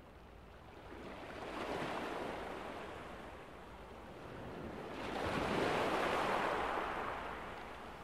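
Ocean surf: two waves break and wash in. The first swells about a second in and fades; the second is louder, peaking past the middle and easing off near the end.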